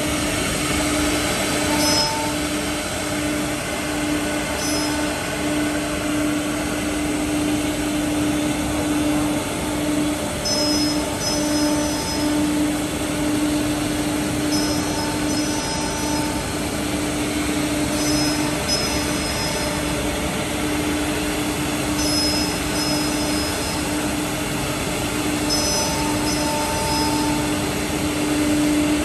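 Single-head CNC wood router running: a steady whine over a broad hiss, with short higher tones that come and go every few seconds.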